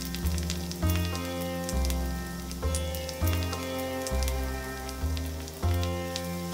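Beef rump steak sizzling in a hot pan, with scattered sharp crackles, under background music whose low notes change about every second.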